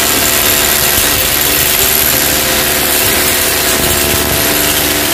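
Power drill running steadily without a break, boring into the masonry wall to fix the steel side track of a sectional garage door.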